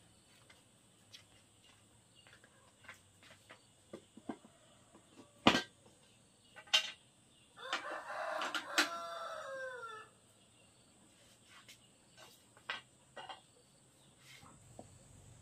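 A rooster crows once, about two seconds long, in the middle of the stretch, its pitch falling at the end. Sharp knocks and clicks are scattered throughout, the two loudest just before the crow.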